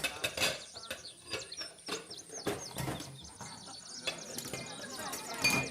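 Party ambience of birds chirping, with scattered clinks and knocks, and a sharper clink near the end.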